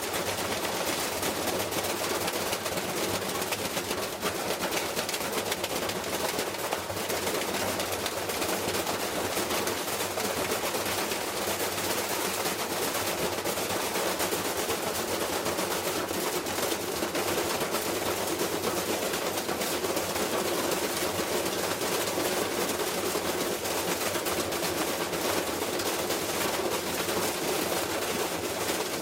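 Washing machine running hard, with a fast, continuous clatter of rattling and knocking that holds steady throughout.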